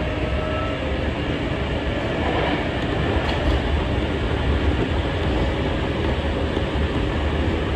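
Hankyu electric commuter train running along the track, heard from inside at the front of the train: a steady running noise of wheels and motors.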